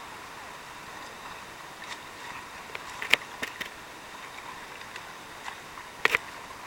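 Rushing river water, a steady hiss of whitewater, with a few sharp clicks about three seconds in and a louder double click near the end.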